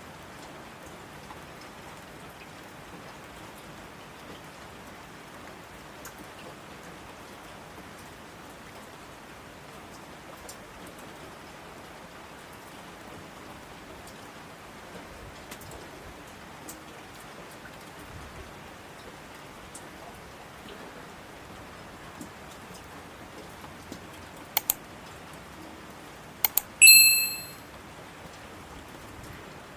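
Steady rain falling. Near the end come a few sharp clicks, then a brief, loud, high-pitched tone.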